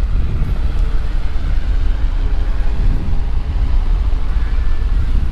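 Wind buffeting the camera microphone: a steady, heavy low rumble.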